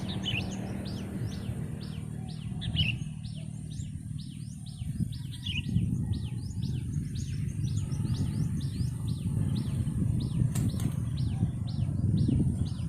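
Rapid series of short, high rising chirps from a small bird, about three a second, over a steady low rumble.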